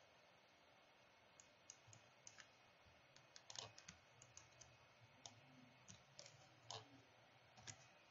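Faint, irregular clicks of a computer mouse and keyboard over near-silent room tone, more frequent in the second half.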